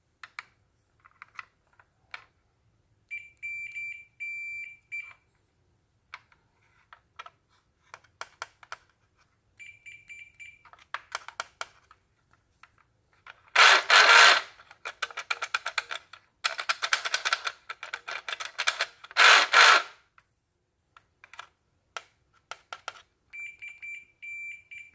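Digital multimeter on continuity test giving a steady high beep three times (about two seconds, one second, and a second and a half), each beep the sign of an unbroken connection between the probe tips. Light clicks of the probe tips tapping the brass battery and switch contacts, and three loud scraping noises in the middle, the loudest sounds.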